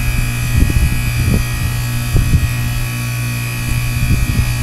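Goodman heat pump outdoor unit running with a steady buzzing hum and a faint high whine as it steams from defrosting, with irregular brief low crackles.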